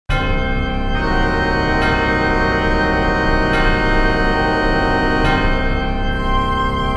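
Organ music: sustained chords, with a new chord struck every second or two.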